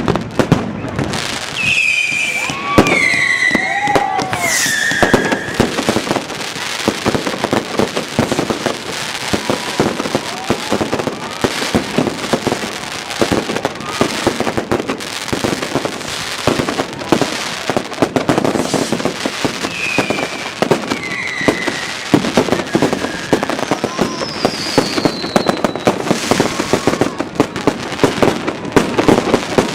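Fireworks going off all around in dense, continuous crackling and banging, many reports overlapping. High whistles falling in pitch cut through a few seconds in and again about twenty seconds in.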